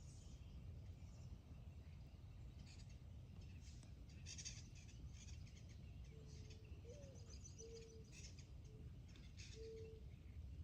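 Faint wild birdsong: many short, high chirps and twitters scattered throughout, with a few low steady call notes in the second half, over a low steady rumble.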